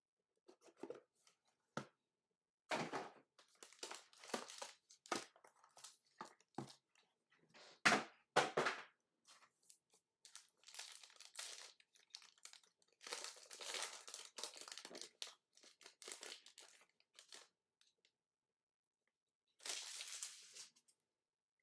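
Tearing and crinkling of plastic and paper packaging as a sealed trading-card box is opened: irregular rips and rustles with short pauses, the loudest about 8 seconds in.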